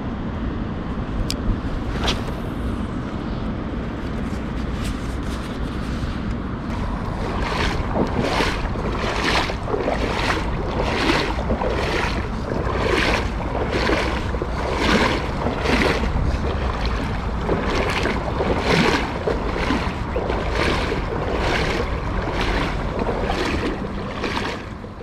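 Steady rush of wind and moving river water. From about seven seconds in, a steady rhythm of sloshing steps, nearly two a second, as legs in waders walk through the shallows.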